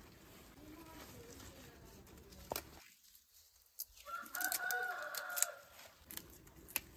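A rooster crows once, a held call of about a second and a half, a little over four seconds in, with a few faint clicks around it.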